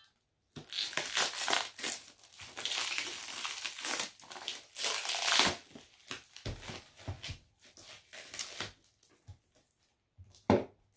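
Packing material crinkling and crumpling as it is handled, in irregular bursts, with one sharp knock near the end.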